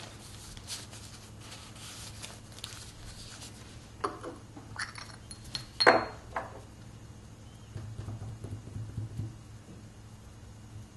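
Paper rustling as the album is handled, then a few clinks of a porcelain seal-paste jar and its lid, the loudest about six seconds in. Soft, quick dabbing follows as the seal stone is inked in the red paste.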